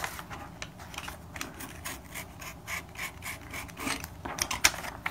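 Snap-off utility knife cutting a sheet of origami paper, a run of short scraping strokes of the blade through the paper.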